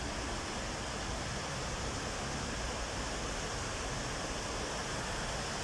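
Floodwater rushing steadily along a street after heavy rain, with the street overflowing because the drains and sewers cannot take the storm water.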